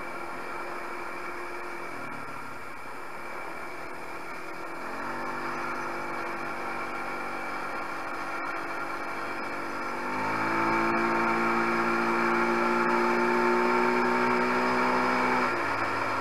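250 cc quad ATV engine running under way. The revs pick up about five seconds in, then step up louder again around ten seconds in and climb slowly before the throttle is eased off shortly before the end.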